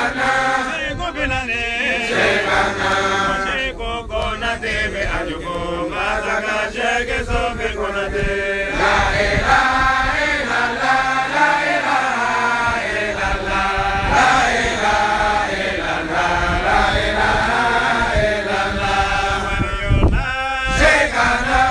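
Men's voices chanting a sustained, melodic Islamic devotional recitation of the names of God and of the Prophet Muhammad.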